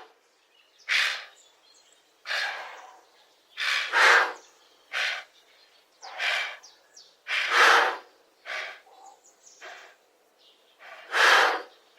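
Giraffe snorting: a series of about nine short, breathy blasts of air, irregularly spaced about a second apart, the loudest near the middle and near the end.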